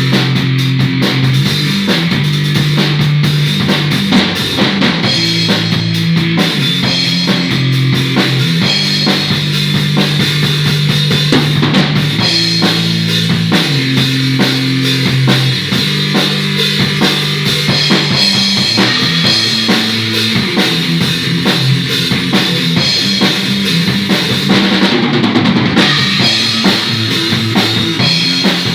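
Two musicians jamming: a drum kit playing a steady beat, with low held notes underneath that change pitch every second or two.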